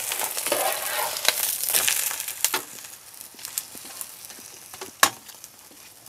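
Cabbage pancake sizzling in oil in a frying pan: a steady crackling sizzle that drops lower after about two and a half seconds, with a sharp click about five seconds in.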